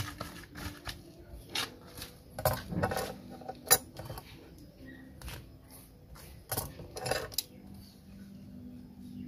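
Hands and tools working a root ball loose in a bonsai pot: irregular short scrapes, knocks and clicks of soil, roots and tool against the pot, the loudest a sharp clack about three and a half seconds in.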